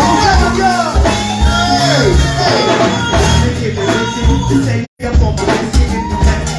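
Live go-go band music: a singer's voice over a steady drum beat and bass. The sound cuts out completely for a split second a little before the five-second mark.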